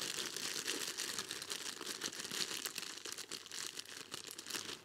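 Small plastic zip-lock bag crinkling and rustling in the hand as it is opened to get the rubber bands out: a dense, steady crackle that stops right at the end.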